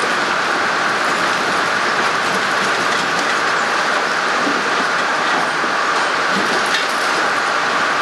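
Steady, loud din of sawmill machinery running as a log moves beneath a large circular blade, with a few faint rattles.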